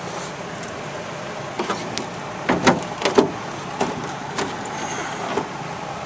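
Irregular knocks and clatters, about ten over four seconds and loudest in the middle, from handling the harness around the dragster's aluminium seat and roll cage, over a steady background hiss.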